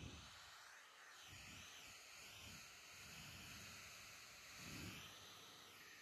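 Near silence: a faint steady hiss with a few soft low rustling bumps, the loudest near the end.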